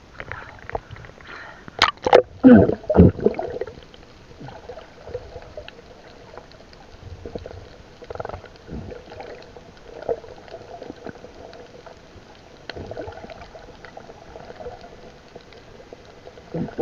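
Water splashing and a rush of bubbles as the camera goes under the sea surface about two seconds in, then muffled underwater gurgling with scattered small bubble sounds.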